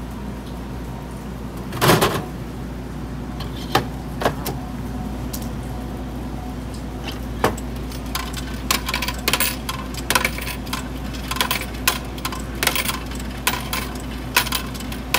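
Coins clinking in the metal coin-return cup of a Dixie-Narco vending machine as fingers pick out the change, many short clicks in the second half. One heavier clatter comes about two seconds in. A steady low hum runs underneath.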